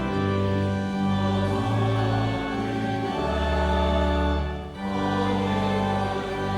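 Hymn sung by choir voices over organ accompaniment: held chords moving over long, steady bass notes.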